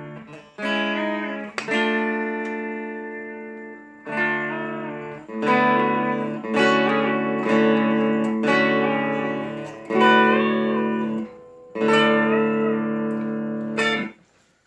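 Electric Telecaster fitted with a Re-Lapz B-bender, playing a string of chords. Each chord rings for a second or two, and in several of them the B-string note is bent up and back down, giving a pedal-steel-like sound. The playing stops near the end.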